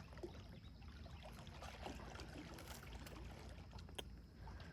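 Faint outdoor ambience: a low, steady rumble with a few scattered small clicks.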